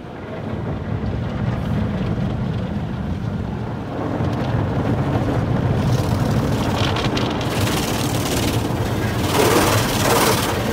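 Automatic car wash heard from inside the car: a steady low rumble with water spray hissing against the windows and body, the spray growing louder from about halfway through.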